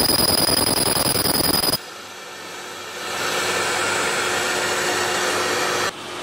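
Hand-held pulsed laser cleaner ablating rust off steel: a loud, dense crackling buzz with a steady high whine, which stops abruptly about two seconds in. A quieter steady hiss follows and cuts off near the end.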